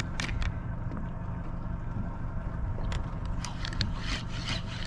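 Scrapes and clicks of a spinning reel being handled and worked, over the steady low hum of the boat's idling engine.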